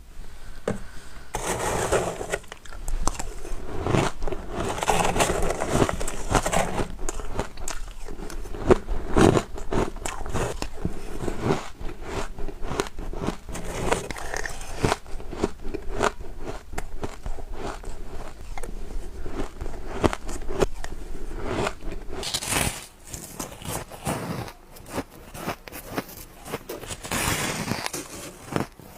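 Bites into ice, one after another: a dense, irregular run of crunches and cracks, with crisp, squeaky crunching that is loudest twice near the end.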